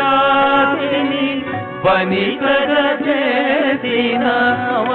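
Music from a Telugu devotional kirtana: a long held note for the first two seconds, then a winding melodic phrase over accompaniment.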